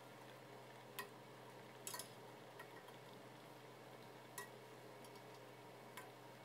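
Near silence, broken by a few faint light ticks of a metal ladle against the side of a stainless steel pot while foam is skimmed off the boiling soup.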